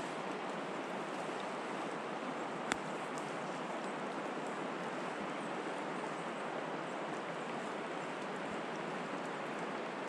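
Stream water rushing steadily over a shallow, stony riffle, with one short sharp click about two and a half seconds in.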